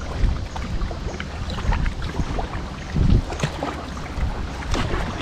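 Kayak paddling: water splashing and dripping off the paddle blades in many small scattered splashes, over a steady rumble of wind on the microphone. A louder low thump comes about three seconds in.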